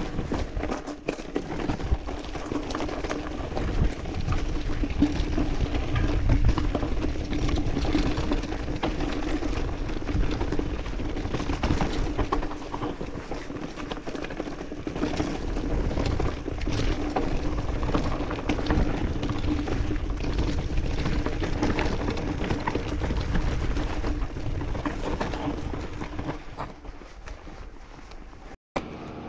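Mountain bike riding down a rocky dirt singletrack: tyres rolling and crunching over stones and the bike rattling over the bumps, with a heavy low rumble and a steady hum underneath that fades near the end.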